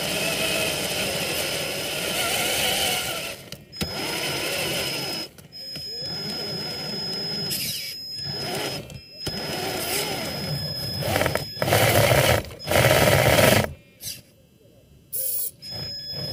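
Traxxas TRX-4 RC crawler's electric motor and geared drivetrain whining, its pitch rising and falling with the throttle. It stops for a moment several times, and it is loudest a little after the middle.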